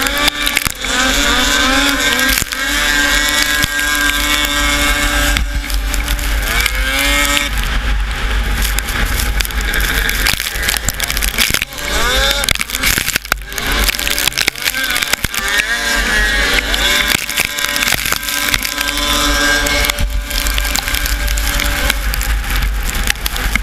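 Racing snowmobile engine running hard, its pitch rising and falling repeatedly with the throttle, heard from the sled itself with heavy wind buffeting the microphone.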